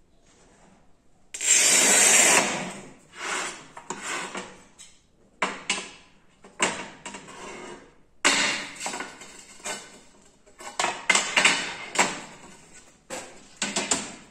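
A homemade tile cutter's scoring wheel is run along a porcelain strip: a loud, scratchy scrape lasting about a second, a second in. It is followed by a string of sharp knocks and clatters as the porcelain pieces are snapped and handled.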